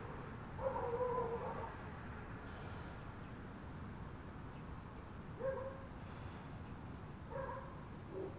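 An animal calling: one pitched call about a second long near the start, then three short calls later on.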